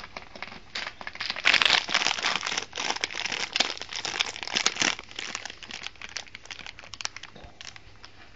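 Dry hay rustling and crackling as a guinea pig burrows and roots through it for food, in dense busy crackles that are heaviest in the first half and lighter later on.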